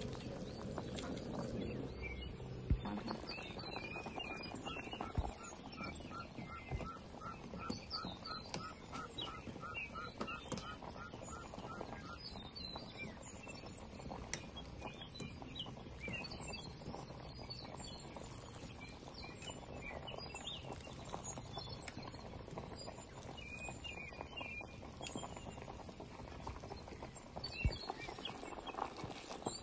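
Birds chirping in the background over a steady low hiss, with a run of evenly spaced short pips, about three a second, for several seconds in the first half. A few sharp knocks, as of utensils on the pot or bowl, stand out.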